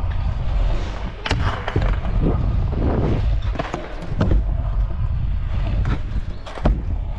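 Stunt scooter rolling over skatepark ramps with a steady low rumble, broken by several sharp clacks as its deck and wheels strike the ramp.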